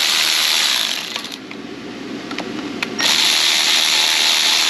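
Cordless electric ratchet spinning out the 10 mm bolts of an LT1 Optispark distributor, running in two bursts. It stops a little over a second in, a few sharp clicks come in the gap, and it starts again about three seconds in.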